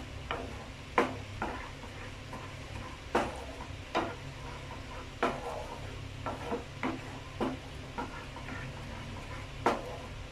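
Spatula stirring thick barbecue sauce in a nonstick pan, scraping and knocking against the pan at irregular intervals, over a low sizzle and a steady low hum.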